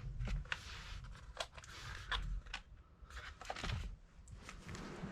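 Hands handling a small LiPo battery and its plug: a string of light clicks and scrapes, about a dozen small knocks spread irregularly.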